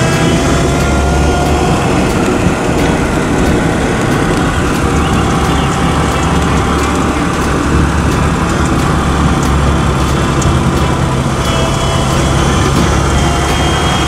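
Six-cylinder engine of a 1929 Oakland American 6 running steadily as the car drives along, with a faint whine that drifts in pitch.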